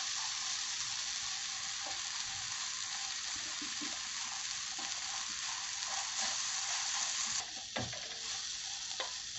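Onion and tomato masala sizzling in oil on a tawa over a gas flame, with light scraping and stirring ticks now and then.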